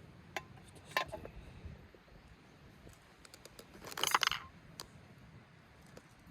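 Light metallic clinks and clatter from metal cooking gear being handled: a sharp click near the start and another about a second in, then a quick run of small ticks and the loudest jingling clatter about four seconds in.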